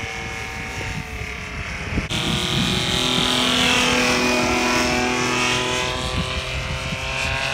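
Paramotor engine running steadily; after a cut about two seconds in, a louder paramotor engine and propeller in flight, its pitch swelling and dipping.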